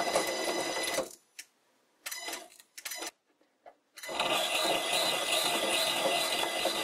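Old sliding-spindle bench lathe running with a steady whine while its tool bit cuts a thread into a glued, wet wooden workpiece. The lathe stops about a second in, a few short knocks follow, and it starts again about four seconds in. The wood tears up into fibres instead of taking a clean thread.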